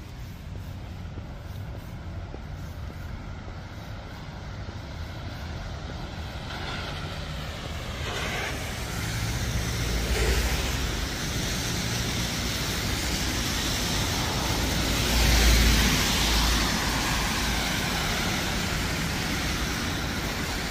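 Road traffic passing on a snowy street: low engine rumble and tyre hiss swelling twice, around ten seconds in and, loudest, around fifteen seconds in.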